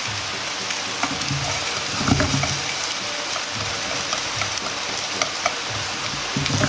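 Carrot strips and diced ginger sizzling steadily in oil in a frying pan over low heat. A few light taps of wooden chopsticks on the pan come through as the pieces are spread out.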